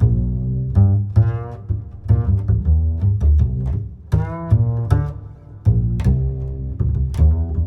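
Background music: bowed strings over a low plucked bass, with sharp percussive hits.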